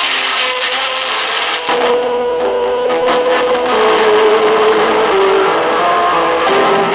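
Lo-fi music from a cassette album: a few held notes moving slowly from pitch to pitch over a dense noisy wash.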